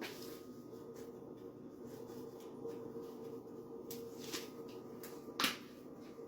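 Light clicks and knocks of kitchen items being handled over a steady hum, with the sharpest knock about five seconds in.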